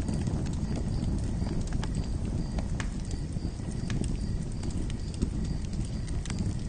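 Campfire crackling: a steady low rumble of burning wood with irregular sharp pops and snaps.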